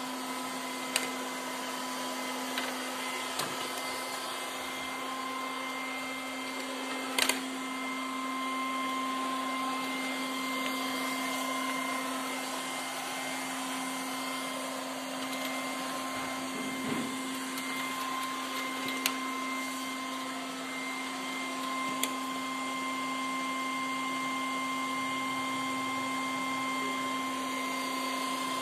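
Milagrow Sea Gull robot vacuum cleaner running: a steady motor hum and hiss with constant tones, broken by a few short knocks, the loudest about seven seconds in.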